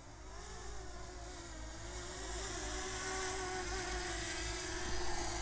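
DJI Mini SE quadcopter's propellers buzzing as it comes in to land. It is a wavering hum that settles to a steady pitch and grows louder toward the end.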